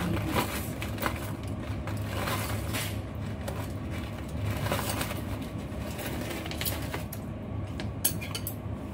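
Chopsticks stirring and tossing noodles in a ceramic bowl: scattered light clicks and scrapes against the bowl, over a steady low hum.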